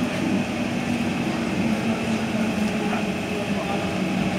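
Steady hum of an SMRT C151 train standing at a station with its doors open, its air-conditioning and onboard equipment running.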